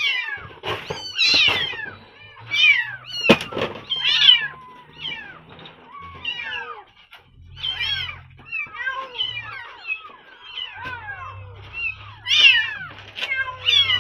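A litter of very young kittens, eyes not yet open, mewing over and over in short, high, overlapping cries. A few sharp knocks in the first few seconds come from a cardboard box being handled against a wire cage.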